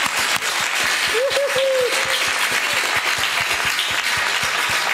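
Applause: many hands clapping in a dense patter, with a short voice call about a second in.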